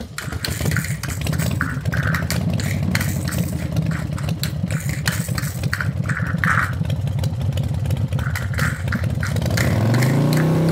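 Motorcycle engine sound effect running with a fast pulsing beat. About nine and a half seconds in it revs up to a higher, louder, steady note.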